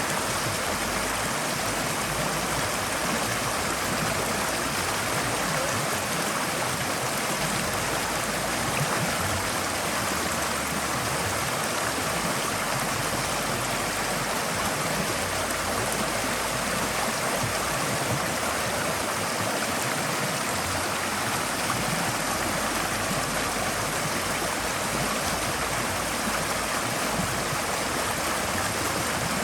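Forest stream flowing over rocks: a steady rush of running water with gurgling, even and unchanging throughout.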